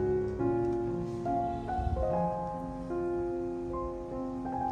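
Slow instrumental background music, a piano melody of held notes changing every half second or so.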